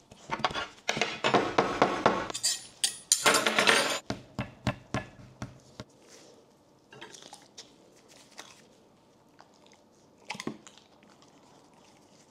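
A wooden board with food being set down and arranged on a table: a few seconds of loud clattering and scraping, then scattered light taps and knocks.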